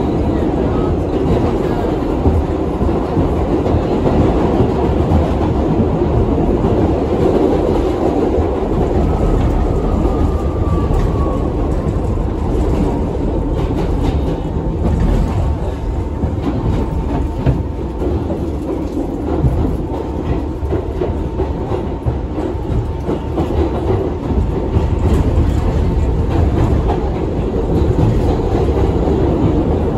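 R62A subway train running between stations, a steady loud rumble of wheels on rail with clickety-clack over the rail joints, heard from inside the car. A faint whine glides down about a third of the way in, and a thin steady tone holds through the middle.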